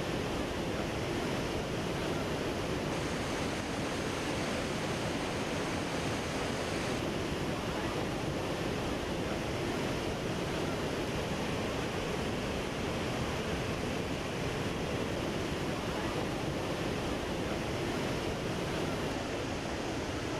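Hukou Waterfall on the Yellow River in summer flood: a huge volume of muddy water pouring over the falls, heard as a steady, unbroken rush of noise.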